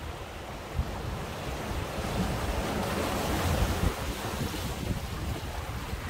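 Sea waves washing in, the hiss swelling to a peak about three and a half seconds in and then easing, with wind buffeting the microphone.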